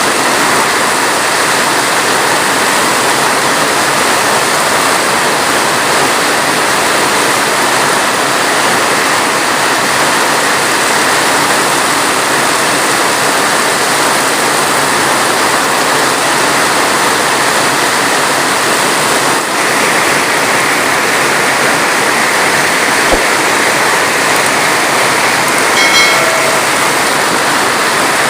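Heavy rain falling steadily, an even, loud hiss with no thunder. A brief high chirp sounds near the end.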